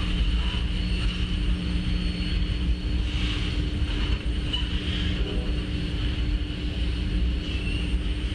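Diesel locomotives running out of sight: a steady low rumble with a constant engine hum, and a steady high-pitched hiss above it.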